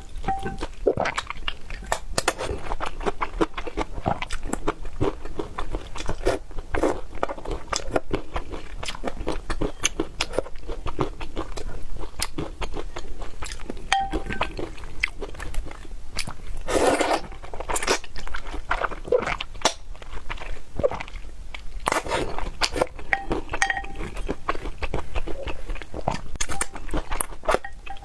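Close-miked eating sounds: a person biting, crunching and chewing food, with many short, sharp clicks and smacks, and one louder, longer noise around the middle.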